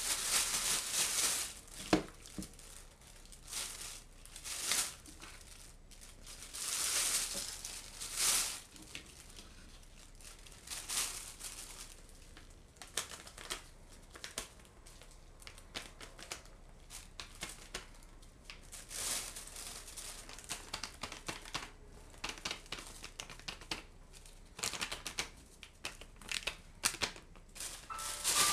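Thin plastic roasting bag crinkling and rustling as it is handled and raw chicken pieces are dropped into it, in irregular bursts with small clicks.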